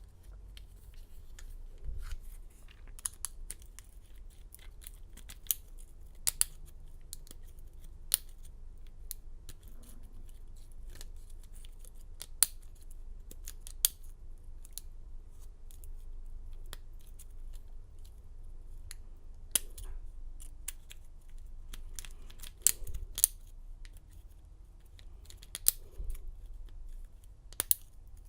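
Lock pick and tension wrench working a Master Lock padlock's pin-tumbler cylinder: scattered sharp metallic clicks and light scrapes at irregular intervals as the pins are picked one at a time.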